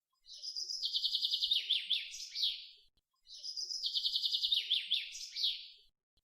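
Songbird singing: a high, fast trill that drops into a few falling notes, about two and a half seconds long, heard twice in identical form about three seconds apart.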